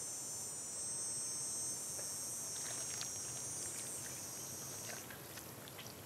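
Insects trilling steadily at a high pitch, stopping about five seconds in, with a few faint ticks.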